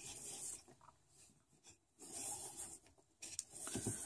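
Nylon paracord being pulled through a bracelet weave, rasping and swishing as the cord slides against the other strands, in about three short pulls.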